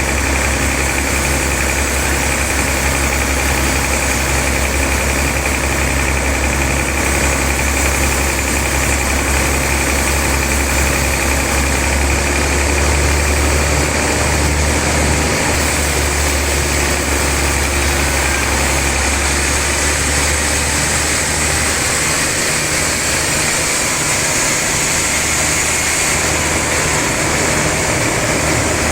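Sawmill log-sawing machinery running steadily with a strong low hum and a broad rushing noise, as a trembesi log is sawn. The deepest part of the hum thins out about two-thirds of the way through.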